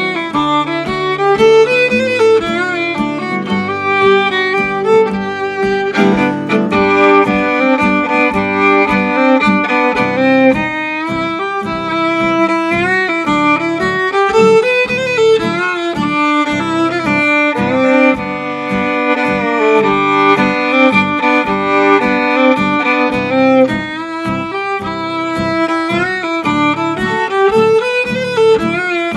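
Old-time fiddle tune: a fiddle carrying the melody with bowed notes, backed by an acoustic guitar strumming the rhythm.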